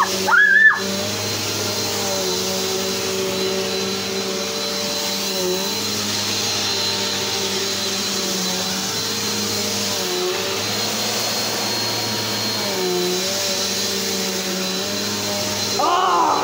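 Vacuum cleaner with a belt-driven brush roll running steadily on carpet: a motor hum with a high whine. The pitch sags briefly a few times as the load changes. The belt and brush roll are spinning properly.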